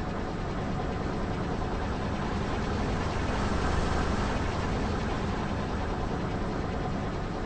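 Car engine running slowly as the car creeps forward on asphalt, its low engine noise swelling a little louder about halfway through as the front tyre rolls over a pile of soft marshmallows, with no crunch heard.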